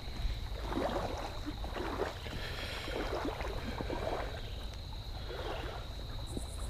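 Shallow creek water running and rippling, with a steady low rumble of wind on the microphone and a faint steady high tone.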